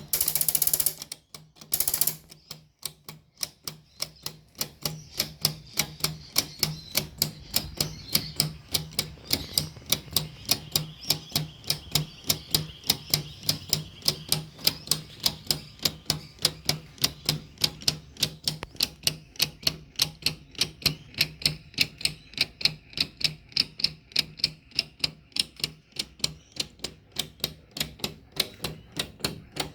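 Large 3D-printed PLA mechanical watch escapement ticking steadily at about three ticks a second: the plastic pallet fork and escape wheel clicking. Two short bursts of noise come first, in the opening two seconds.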